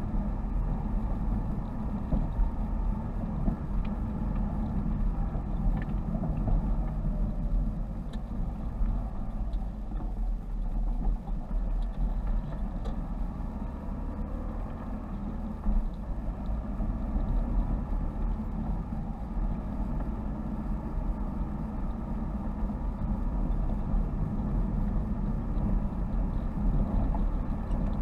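A car driving, heard from inside the cabin: a steady engine hum with tyre and road rumble, and a slight change in the engine note about halfway through.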